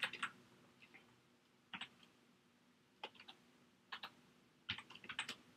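Faint typing on a computer keyboard: scattered single keystrokes with two short runs of quick clicks, the last near the end.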